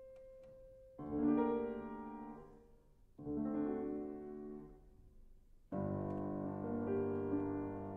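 Grand piano played four hands, classical piano music. A chord is struck about a second in and left to ring and fade, another comes near the middle and fades, then fuller, continuous playing begins about two thirds of the way through.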